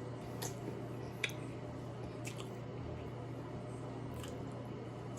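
Faint wet squishing and a few short clicks from a sauce-covered seafood boil being handled and eaten, over a steady low hum.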